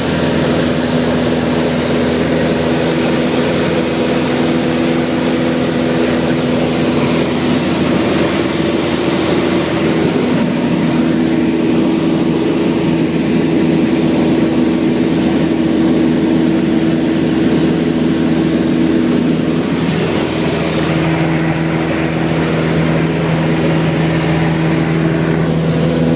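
Beechcraft light aircraft's engine and propeller droning steadily in flight, heard from inside the cabin, with the pitch of the drone shifting slightly about ten and twenty seconds in.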